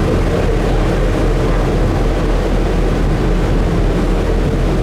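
Ferry under way: a steady, loud low engine rumble mixed with the rush of water and air.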